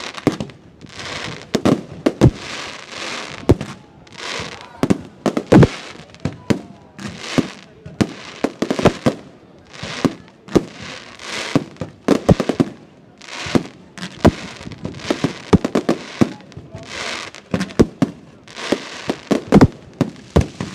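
Aerial fireworks display: loud bangs of shells bursting, one or two a second at an uneven rhythm, most followed by a crackling hiss lasting about a second.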